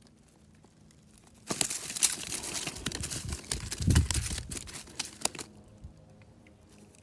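Rustling and crinkling handling noise that starts about a second and a half in and lasts about four seconds, with a low thump partway through.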